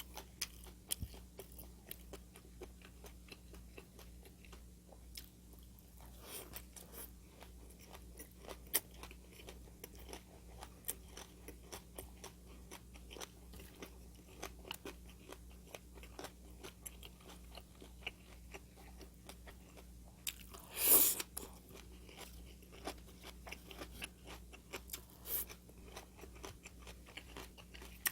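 A person eating crunchy food, chewing with many small crisp crunches and mouth clicks; one louder, longer burst comes about three quarters of the way through.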